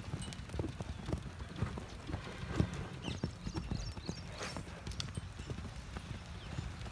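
Hoofbeats of two Marwari horses cantering loose on soft sand: a quick, uneven run of dull thuds.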